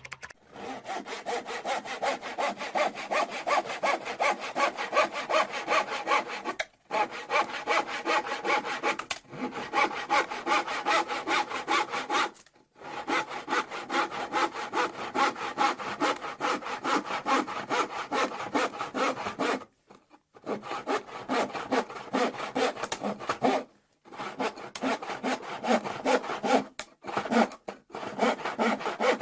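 Hand saw cutting through wood with quick back-and-forth strokes, in several runs separated by short pauses.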